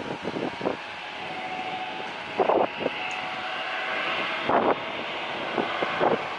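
Jet airliner on approach, its engines a steady rushing noise that swells through the middle and then eases. Gusts of wind buffet the microphone with loud thumps, the loudest about two and a half seconds in and again a couple of seconds later.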